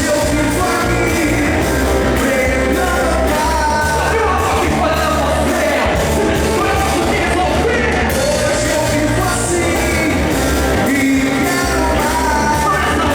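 Worship band playing rock-style praise music with singing over steady bass and drums.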